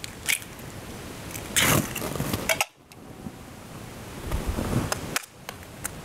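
Eggs being cracked for a dish: a handful of sharp taps and clicks of shell against a bowl, the loudest about a second and a half in.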